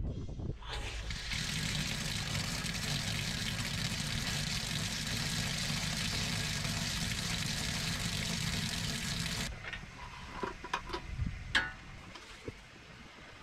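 Pressure washer running steadily, starting about a second in and cutting off suddenly after about nine seconds.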